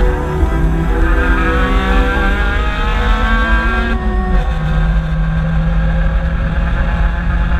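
Car engine heard from inside the cabin, running at high revs under hard acceleration with its pitch climbing slowly. About four seconds in the throttle eases off and the engine settles to a steady, lower tone.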